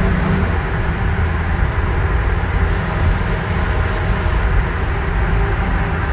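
Detroit Diesel 6V92TA two-stroke V6 diesel running steadily in an FTF logging truck, with a deep, even rumble. A stronger low hum in its note drops away about half a second in.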